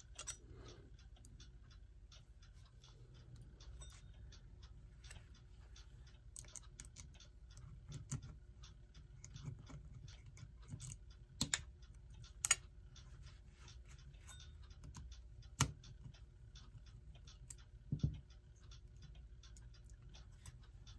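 Small, irregular metallic clicks and scrapes of hand tools working screws and parts on a clock movement, with a few louder clicks in the second half.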